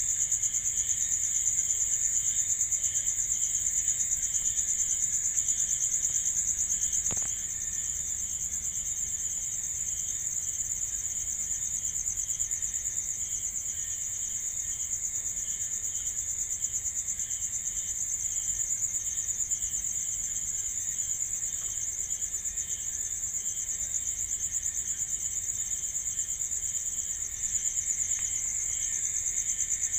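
Crickets chirping at night: a steady, high, continuous trill, with a lower chirping pulsing evenly beneath it.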